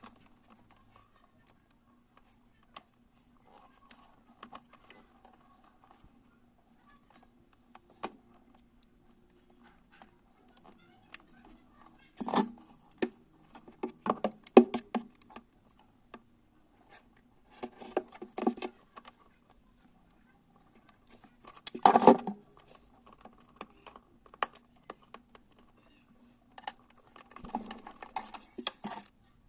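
Small clicks, scrapes and snips of hands and tools handling parts, in several bursts with one sharper knock past the middle, over a faint steady low hum.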